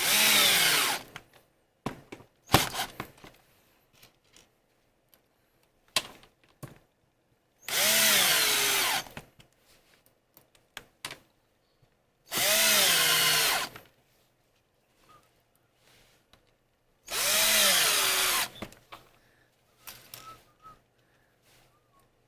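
Electric drill driving screws to fasten caster wheels, in four short runs of about a second and a half, its whine dropping in pitch near the end of each run. Small clicks and knocks between the runs.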